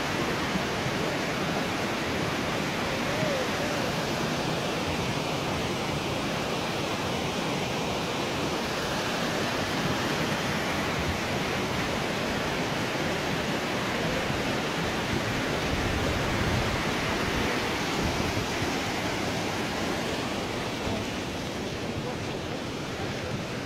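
Steady rushing of muddy floodwater in a stream channel swollen by a flash flood, easing slightly near the end.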